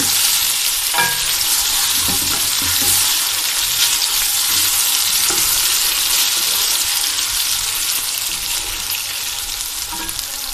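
Sliced taro root (arvi) and onions sizzling in hot oil in a steel karahi, steady and loud, while a spatula stirs them and scrapes the pan.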